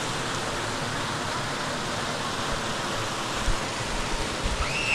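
Steady rushing of a waterfall, an even hiss of falling water, with a brief high chirp just before the end.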